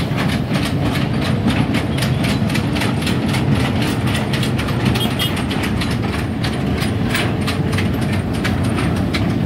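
Hitachi Zaxis 210 F amphibious excavator travelling on its pontoon crawler tracks: the steel track links clank in a fast, even clatter over the diesel engine's steady running.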